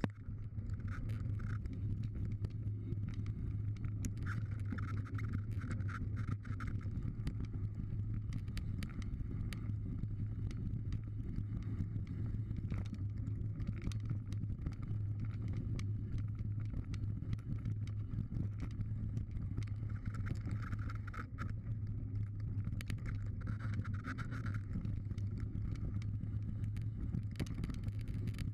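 Mountain bike riding down a dirt trail, heard from a camera mounted on the bike: a steady low rumble of knobbly tyres and wind, with frequent clicks and rattles from the bike over bumps.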